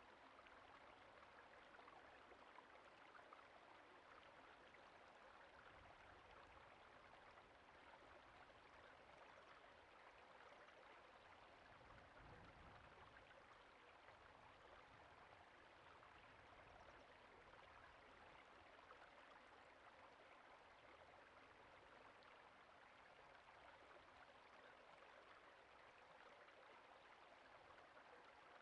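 Creek water flowing steadily, a faint, even rush.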